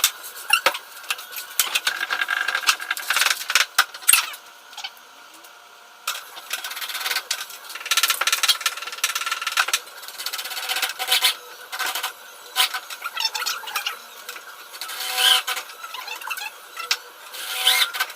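Irregular sharp clicks and knocks, with a couple of short high squeals near the end.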